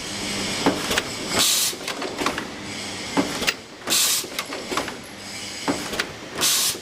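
Automatic chain-making machine running its cycle: a steady run of metallic clicks and knocks, with a short hiss about every two and a half seconds.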